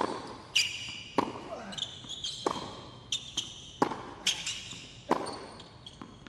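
Tennis rally on a hard court: the ball alternately struck by rackets and bouncing, sharp pops about every half second to a second, with short high squeaks of shoes on the court surface between the hits.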